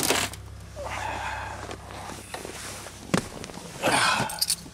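Pontiac Grand Am's car door being opened in freezing cold: a sharp click of the handle, then scraping as the door, feared frozen shut, comes open. A second click and a louder scrape come about three to four seconds in.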